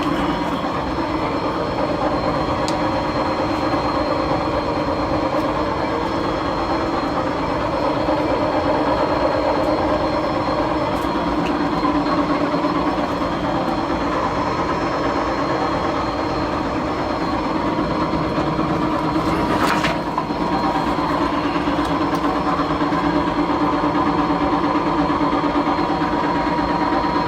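Motor shaft running on bad bearings: a steady mechanical rumble with a hum of several constant tones, the sound of the worn bearings. A short click about twenty seconds in.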